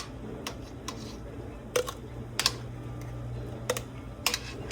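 Irregular light clicks and knocks of small hard objects being handled, about eight in a few seconds, over a steady low hum.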